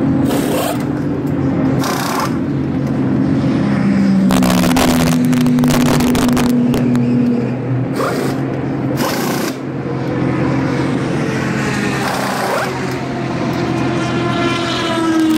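Pit stop on an Acura prototype race car: pneumatic impact wrenches zip in several short, sharp bursts as the wheels are changed, over steady race-engine noise. Near the end a pitched engine note rises.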